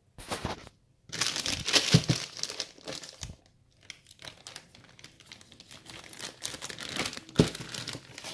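Plastic bag of frozen breaded chicken nuggets crinkling as it is handled. A short burst is followed by a loud crinkling stretch over the first three seconds, then quieter, scattered rustling with one louder crackle near the end.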